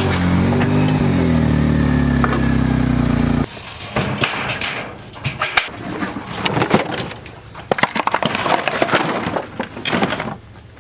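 A vehicle engine running loud, its pitch sliding up and down as it revs and shifts, cutting off abruptly about three and a half seconds in. Then comes a stretch of irregular knocks, clatter and rustling.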